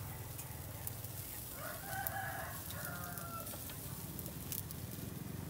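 A rooster crows once, starting about a second and a half in and lasting under two seconds. Underneath is a steady low hum with scattered faint clicks.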